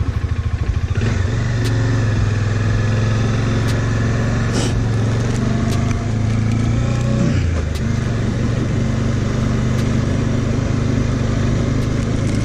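Bajaj Dominar motorcycle engine pulling away from idle about a second in, then running steadily under way. The engine note dips briefly about two-thirds of the way through, then picks up again.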